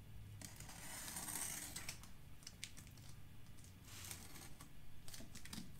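A knife slitting packing tape on a cardboard box: two scratchy cutting strokes, one lasting over a second near the start and a shorter one about four seconds in, with small clicks and taps of the blade and box between them.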